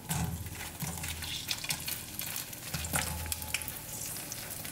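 Hot oil sizzling and crackling as once-fried awama dough balls slide off a plate into a small pan for their second frying, the one that makes them crunchy, with a slotted spoon scraping the plate.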